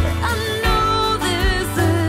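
Background music: a song with a singing voice over a bass line and a beat.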